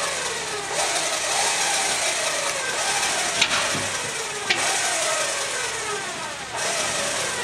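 Jeep Wrangler JK Unlimited engine revving in several bursts under load as it crawls up a rock ledge, the pitch falling after each burst. There are two sharp knocks near the middle.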